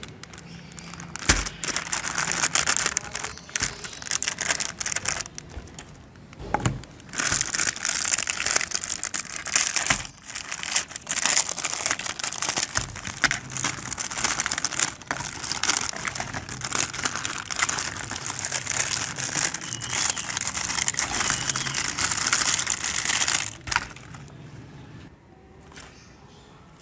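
Clear plastic packaging of a pack of jelly cups crinkling and crackling as it is handled, with brief pauses, stopping near the end.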